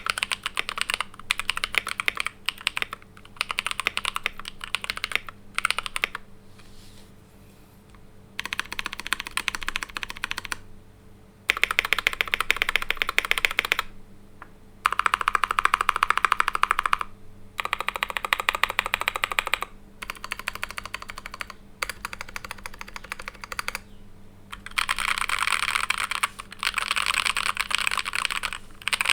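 Fast typing on a Keychron K4V2 mechanical keyboard with Invyr Holy Panda tactile switches, a steel plate and PBT keycaps, foam- and tape-modded. The keystrokes come in dense runs of a few seconds, broken by short pauses.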